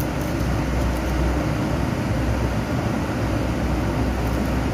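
A steady low hum with an even hiss over it, from a running fan.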